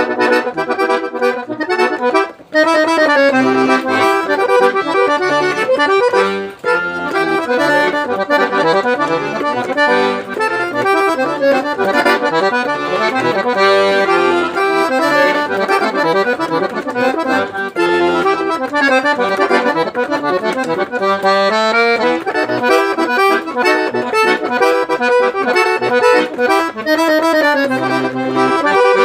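Accordion playing a forró pé de serra tune: a quick melody over bass notes, with two brief breaks about two and a half and six and a half seconds in.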